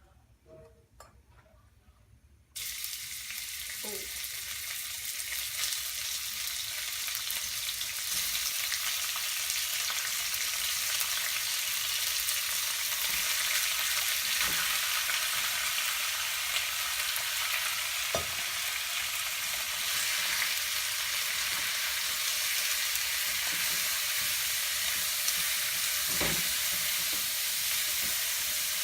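Food frying in hot oil in a pan: a loud, steady sizzle that starts suddenly about two and a half seconds in, with a few scattered light knocks.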